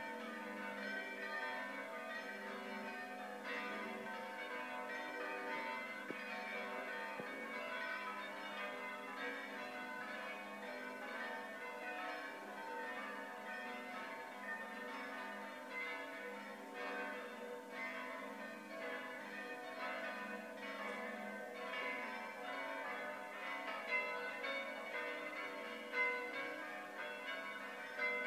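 Many church bells ringing at once: a continuous, dense peal of overlapping strokes and long-ringing tones, rung at midnight for the Proslava custom.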